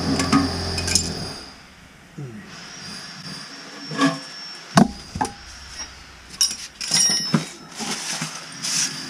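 A steady mechanical hum cuts off about a second in. Then comes a series of separate sharp clinks and knocks: a steel adjustable wrench against the porcelain toilet and the concrete floor.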